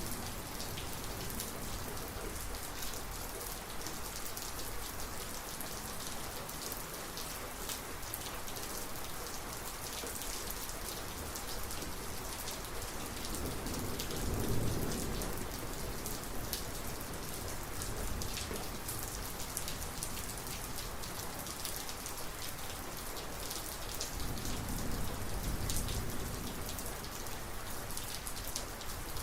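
Thunderstorm rain falling steadily, with sharp drops ticking on surfaces. Thunder rumbles low twice: a short, louder roll about halfway through and a longer one near the end.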